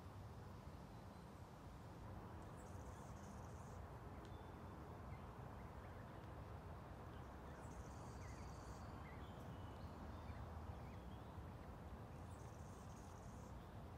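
Faint outdoor natural ambience: a steady low rumble of background noise, with a high, thin, buzzy call repeated three times about five seconds apart and a few faint small chirps.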